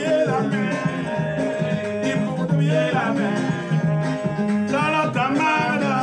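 Music with a singing voice over a steady bass line and plucked string instruments.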